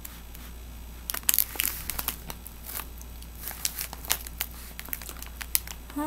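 Plastic cotton candy bag crinkling in short irregular crackles as pieces of cotton candy are pulled out of it, loudest about a second in.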